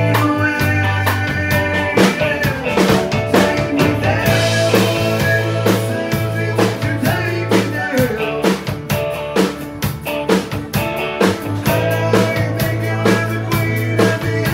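Live country band playing with fiddle, strummed acoustic guitar, electric bass and drum kit keeping a steady beat.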